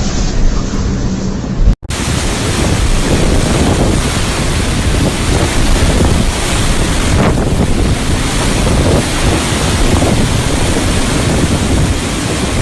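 Strong snowstorm wind blowing across the microphone, a dense buffeting rush, cut off briefly about two seconds in and then resuming.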